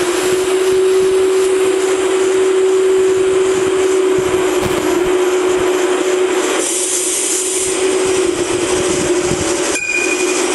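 N-scale EF81 model electric locomotive running with a steady motor whine over a hiss. The whine rises in pitch just before it settles and holds, and near the end it drops out briefly with a short high beep.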